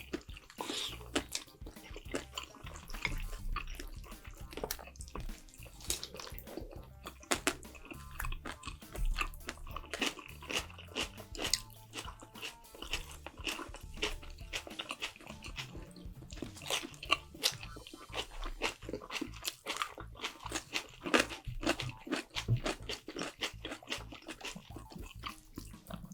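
Close-miked eating: biting, crunching and chewing of food in irregular short clicks, over quiet background music.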